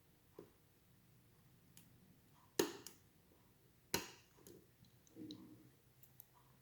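Lock pick and tension tool working the pin stack of an ASSA 700 pin-tumbler lock: faint small ticks and two sharp metallic clicks, the first between two and three seconds in and the second about a second and a half later.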